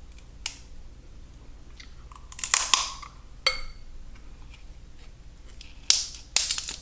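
Snow crab leg shells cracking and snapping as they are broken open by hand, in several sharp cracks. The loudest come in a cluster about two and a half seconds in and in two more near the end.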